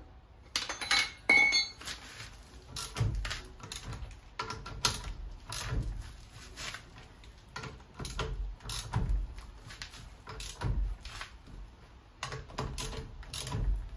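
Irregular metallic clinks and knocks of a wheel wrench and trolley jack as a car's rear wheel is bolted back on and its nuts are worked tight; a ringing clink about a second in is the loudest.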